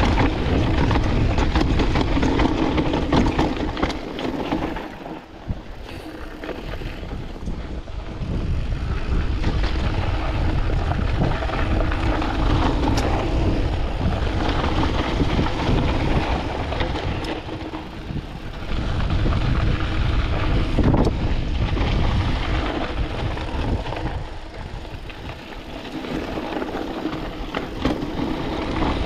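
Canyon Spectral AL 6.0 full-suspension mountain bike riding down a dry, rocky trail: tyres crunching over dust and loose stones, with the chain and frame clattering over the bumps and wind buffeting the microphone. The noise drops for a couple of seconds about five seconds in and again near the end.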